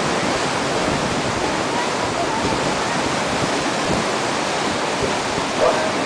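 A swollen river in flood rushing past, a steady, loud wash of water noise that does not let up.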